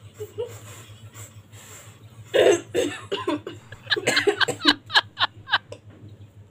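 A girl's suppressed laughter bursts out. A loud snort-like burst comes about two seconds in, then a quick run of short laughs, each falling in pitch, dying away near the end.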